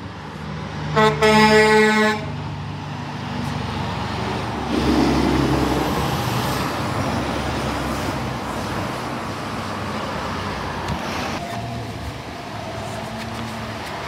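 Semi truck air horn blowing about a second in, a brief toot and then a held blast of about a second. The truck's diesel engine and tyres then pass close by with a rushing rumble that slowly fades.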